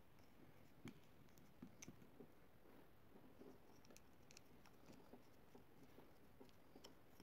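Faint, scattered small clicks and scrapes from a screwdriver and a plastic two-pin plug being handled as a wire is fastened to the pin terminal, over near-silent room tone.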